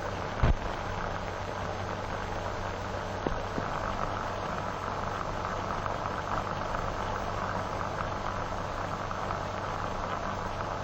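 Steady hiss and low hum of an old film soundtrack, with a single click about half a second in.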